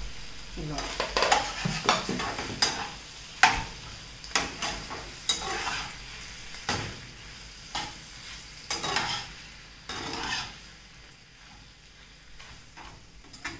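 A spatula scraping and clacking against a non-stick pan as saucy fried chicken with onions and capsicum is stirred and tossed over a light sizzle. The strokes come quickly for about ten seconds, then ease off.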